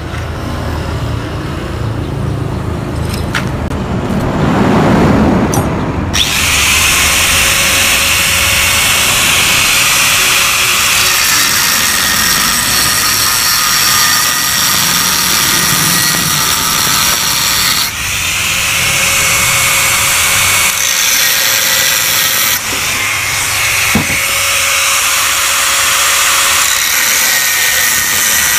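Angle grinder cutting into a steel Yamaha RX King motorcycle muffler to split it open. After a lower start, the disc bites in about six seconds in with a steady, loud, hissing screech of the cut, easing briefly twice.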